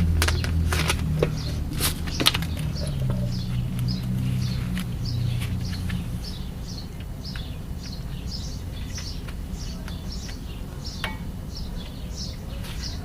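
A bird calling over and over, a short falling chirp about two or three times a second. A few sharp clicks and a low rumble sound in the first couple of seconds.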